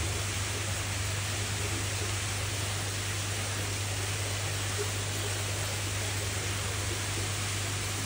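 Steady, even hiss with a constant low hum underneath.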